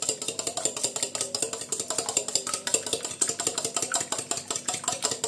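A fork beating raw eggs in a stainless steel bowl: rapid, even clinking of the tines against the metal, about eight strokes a second.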